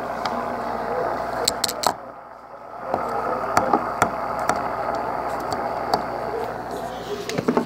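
A steady noisy hum with sharp clicks and knocks scattered over it, several close together about a second and a half in, from a phone being handled up against an aquarium's glass.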